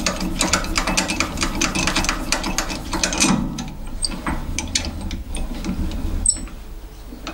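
Rapid mechanical clicking and rattling at a metal lathe as a die nut in a tailstock die holder is brought onto the workpiece to cut a thread. The clicks thin out about three seconds in, to scattered clicks and one sharp metallic click near the end, over a steady low hum.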